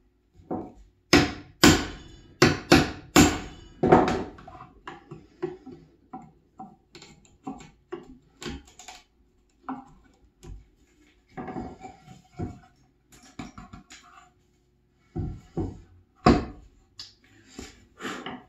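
A metal hammer striking a chisel driven into pine to chop out joint waste: a quick run of about six hard, ringing blows in the first few seconds, then lighter taps and scraping as the chisel works the cut, and two more hard blows near the end.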